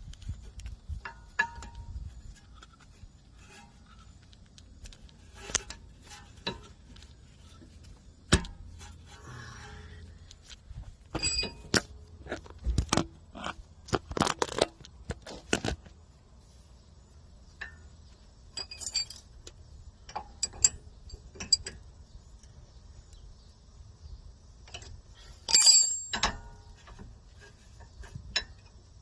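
Metal brake parts and tools clicking and clinking, scattered knocks and taps while working on a rear disc brake caliper and its pads, some with a short metallic ring; the loudest is a ringing clink near the end.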